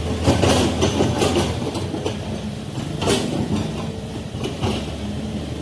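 Komatsu D85E SS crawler bulldozer's diesel engine running steadily, with repeated metallic clanks from its steel tracks, a flurry of them in the first second and single ones later.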